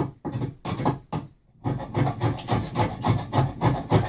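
A hand-held abrasive tool scraped back and forth over an oak board: a few separate strokes with short pauses, then about four quick strokes a second from about a second and a half in.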